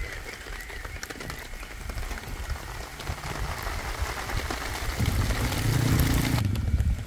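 Wind rumbling on the microphone, with a rain-like hiss that builds through the middle and stops abruptly about a second before the end.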